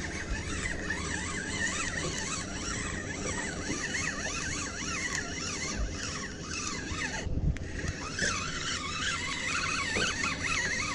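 Fishing reel being cranked to bring in a hooked bass: a whirring whine that rises and falls in pitch with each turn of the handle, pausing briefly about seven seconds in.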